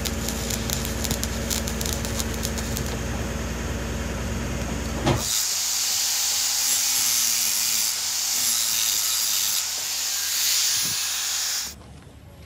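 Electric arc welding crackling steadily. About five seconds in it cuts to an angle grinder's abrasive disc grinding down a weld bead on a steel excavator axle plate: a loud steady high hiss over a faint whine, which stops abruptly near the end.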